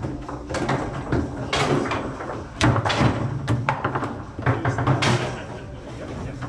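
Foosball table in play: a rapid, irregular run of sharp knocks and cracks as the ball is struck by the player figures and hits the table's walls.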